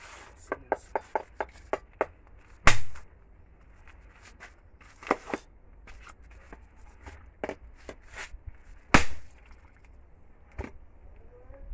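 A machete chopping into the plastic case of an old lead-acid car battery. A quick run of light knocks comes first, then heavy single blows every second or two, the loudest about three seconds in and about nine seconds in, as the blade breaks through the case.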